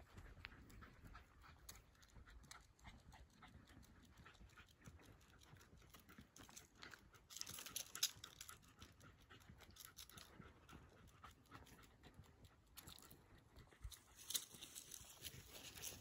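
Jack Russell terrier panting faintly on a walk, with light ticking steps on the paved road.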